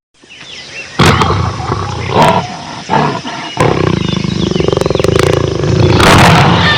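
Jaguar growling and roaring, a sound effect: a few short rough growls, then one long growling roar through the second half. A quieter hiss fills the first second.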